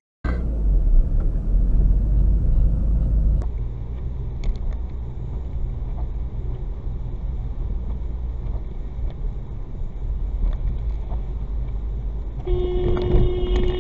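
Steady road and engine rumble heard from inside a moving car. Near the end a car horn sounds once, a single steady tone held for just over a second.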